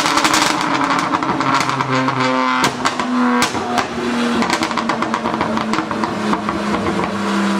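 Performance car engine revving, its pitch stepping up and down between held notes, with rapid exhaust pops and crackles throughout.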